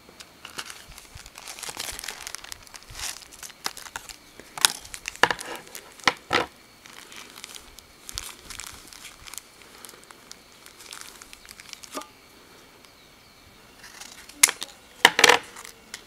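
Plastic packaging crinkling and rustling in the hands: a bag of replacement lighter cotton balls and a wick packet on a card being handled, in irregular bunches of crackles, busiest early on and again just before the end.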